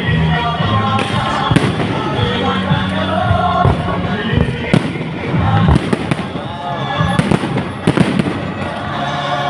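Aerial fireworks exploding in a string of sharp bangs at irregular intervals, over loud music with steady low tones.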